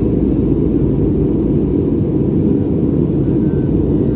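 Steady low cabin roar of an Airbus A320neo in flight: engine and airflow noise heard from inside the passenger cabin.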